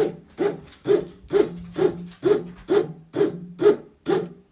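Bread maker kneading French bread dough, its motor and paddle going in short, even pulses of about two a second.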